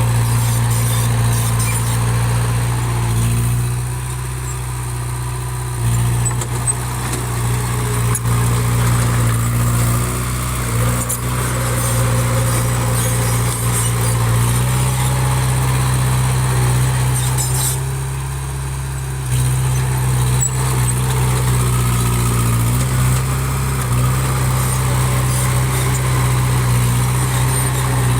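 Small bulldozer's diesel engine running steadily with a deep hum, easing off briefly twice, about four seconds in and again just past the middle, then picking back up.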